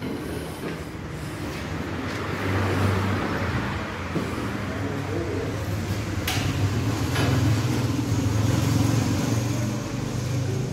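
Road traffic with a vehicle engine running as a steady low hum, which grows louder about two and a half seconds in and stays up. A single sharp click about six seconds in.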